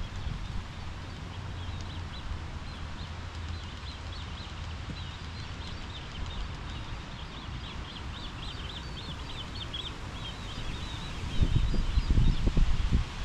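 Small songbird singing a long run of rapid high chirps over a steady low outdoor rumble. Near the end, loud low buffeting, like wind gusting on the microphone, covers it.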